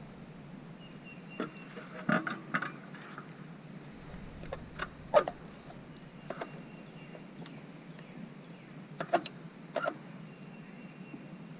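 A dozen or so short, sharp clicks and knocks at irregular intervals over a steady low hiss, with a faint thin high tone now and then.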